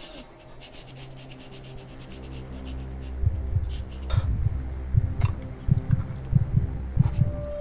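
Horror sound design: a low rumbling drone swells, then from about three seconds in a deep thudding heartbeat effect pounds at roughly three beats a second, growing louder. A steady high tone comes in near the end.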